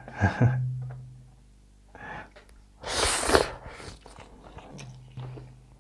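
A person slurping a big mouthful of spicy instant noodles in one loud, noisy pull about three seconds in, followed by soft chewing clicks.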